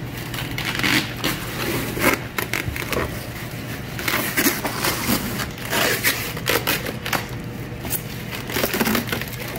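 Plastic liner bag and packing tape crinkling and rustling in irregular bursts as they are pulled off a styrofoam shipping box nested in a cardboard box.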